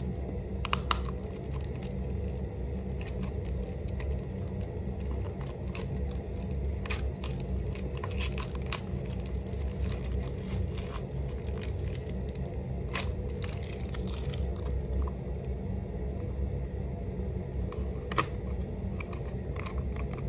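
Small makeup packaging being opened and handled by hand: scattered crinkles, taps and clicks of plastic and cardboard wrapping, over a steady low hum.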